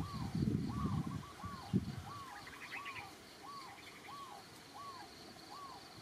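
An animal calling over and over: short notes that rise and fall, about one every 0.7 seconds, at an even pace. Low muffled noise sits under the calls for the first two seconds and then dies away.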